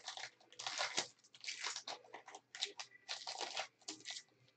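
Foil wrapper of a baseball card pack being torn open and crumpled: a series of short crinkling rustles.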